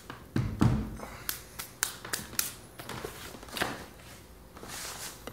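Handling sounds by hand at a stopped drill press and its wooden workpiece: two dull knocks about half a second in, then a string of sharp clicks and taps, and a short rustle near the end.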